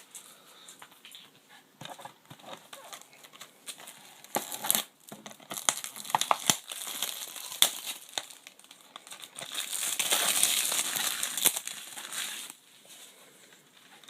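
Plastic shrink-wrap being crinkled and peeled off a Blu-ray case, with many sharp crackles and a longer, louder tearing stretch of about two seconds near the end.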